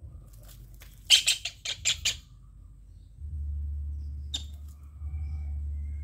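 Javan kingfisher giving a harsh, rattling squawk of about six quick notes around a second in, followed a couple of seconds later by a single sharp click over a low rumble.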